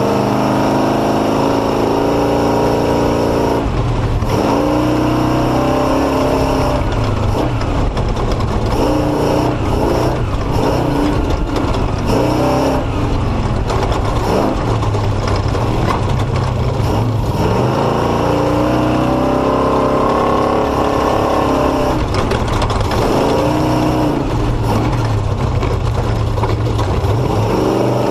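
Truck engine running while driving off-road over rocks and silt, its pitch rising and falling every few seconds as it revs up and eases off, with scattered knocks and rattles from the rough ground.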